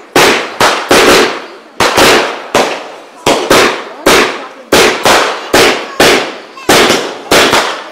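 Fireworks going off in quick succession: a rapid, slightly uneven series of loud bangs, about two a second, each dying away briefly before the next.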